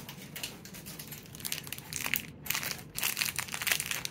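Crinkling and rustling from handling, in irregular crackly bursts that grow louder about two seconds in.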